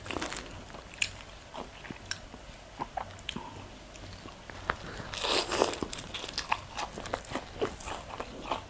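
Close-up crunching and chewing of crispy deep-fried pork intestine (chicharon bulaklak): many sharp crackly crunches, with a louder, denser stretch of crunching a little past the middle.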